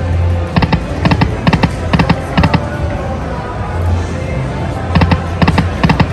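Lightning Cash slot machine playing its bonus-feature music and sound effects: clusters of sharp electronic hits, several a second, over a steady low hum.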